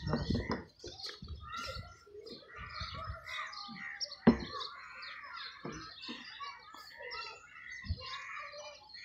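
Small birds chirping and twittering in many short calls throughout, with a few dull thumps early on and one sharp knock about four seconds in, plus a lighter knock near the end.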